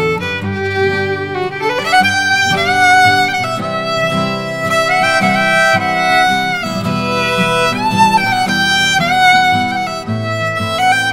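Fiddle bowing a slow waltz melody in G, with sustained notes and a slide up about two seconds in, over a lower guitar accompaniment.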